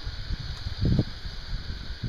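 Breeze rustling the leaves and buffeting the microphone in uneven gusts, with a stronger gust just before a second in.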